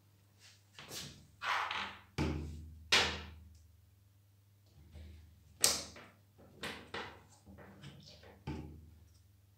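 The plastic body and lance of a disassembled Nilfisk G3 pressure-washer spray gun being handled and set down on a tabletop. About eight sharp knocks and thunks come at irregular intervals, with the loudest about three seconds and six seconds in.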